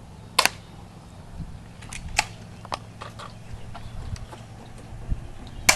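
Airsoft gun shots and BB hits: two loud sharp cracks, one about half a second in and one near the end, with several fainter ticks at irregular intervals between them.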